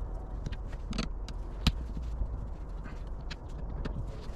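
Scattered light clicks and knocks of hand tools and metal parts being handled while taking a boat's fuel pickup off its fuel tank, the sharpest click about a second and a half in, over a steady low hum.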